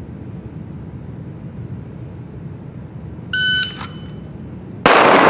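AMG Lab Commander shot timer gives one start beep about a third of a second long, a little over three seconds in. About a second and a half later a single pistol shot cracks out, very loud, ringing on in the echo of the indoor range.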